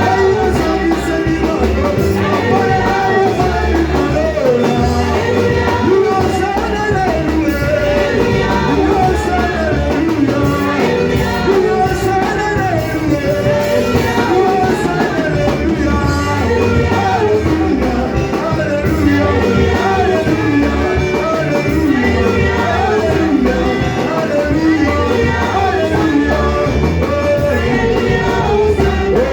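Church worship music: voices singing over instrumental accompaniment with a bass line.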